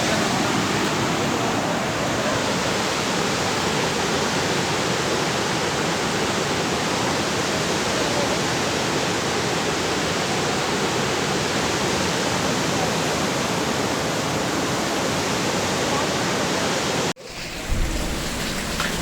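Rushing water of the Kali River in flood: a loud, steady rush of noise with no rhythm. Near the end it cuts off abruptly and comes back quieter with more low rumble.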